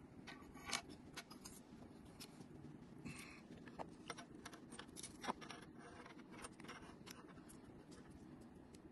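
Faint handling noise: light clicks, taps and small metal scrapes as a pocket telescopic pen fishing rod and a small spinning reel are handled and the reel is fitted to the rod's reel seat. Two sharper clicks come about a second in and about five seconds in.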